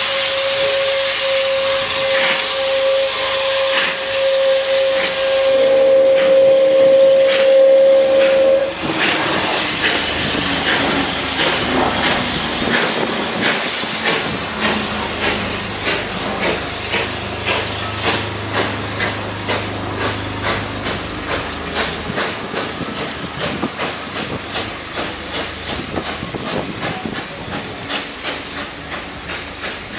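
Steam tank locomotive sounding a long, steady whistle note over the hiss of escaping steam, which cuts off about nine seconds in. The engine then pulls away, its exhaust beats slowly quickening as the carriages roll past with a regular clicking of wheels over rail joints, fading as the train leaves.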